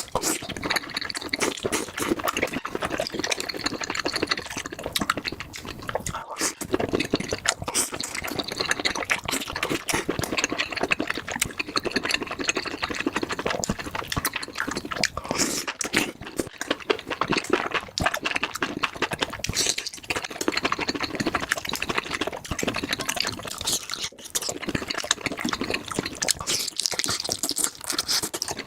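Close-miked wet, crackling sounds of a saucy spicy mushroom meal: a dense stream of small juicy clicks and squelches, broken by brief pauses.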